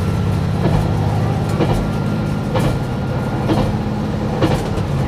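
KiHa 187 diesel railcar running along the line, heard from the driver's cab: a steady low engine drone, with the wheels clacking over rail joints about once a second.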